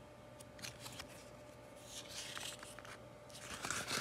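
Pages of a sticker book rustling as a sheet is turned over: a soft brush of paper about halfway through, then a louder rustle near the end.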